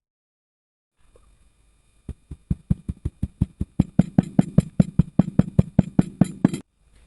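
Rapid, evenly spaced knocks, about five a second, growing louder over the first couple of seconds, then holding steady before stopping suddenly.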